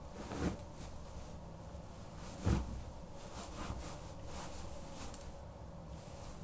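Caterpillar suede boots treading on a duvet: a few soft, muffled thuds of footsteps, the strongest about two and a half seconds in, with lighter ones after.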